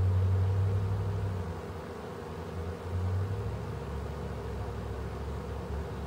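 Ceiling fan running steadily: an even hum with a low drone that is loudest in the first second and a half, swells again briefly about three seconds in, then settles lower and quieter.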